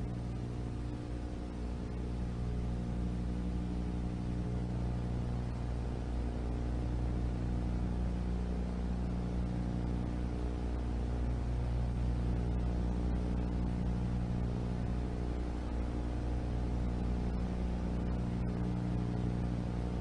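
A steady low droning hum made of several held tones, unchanging throughout.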